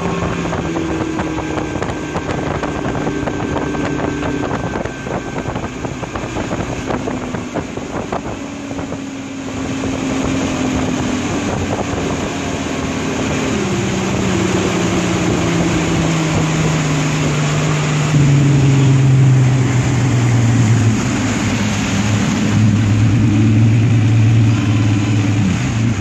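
1989 Mercury Black Max XR4 150 hp two-stroke V6 outboard running at speed, under wind and water rush. About halfway through its note falls steadily in pitch as the engine slows and the boat comes down off speed.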